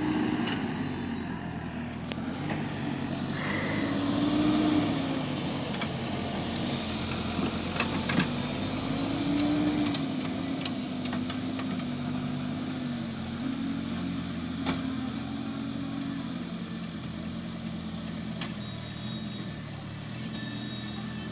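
Diesel engine of a JCB backhoe loader running under load, its revs rising and falling as it drives with a full front bucket and lifts the bucket. A few sharp metal clanks come through, about 8 seconds in and again near 15 seconds.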